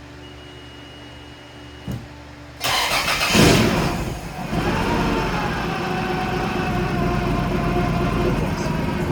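Car engine being cranked and catching about two and a half seconds in, flaring briefly in revs, then settling into a steady idle. The misfire and exhaust leak have been fixed. A short click comes just before the start.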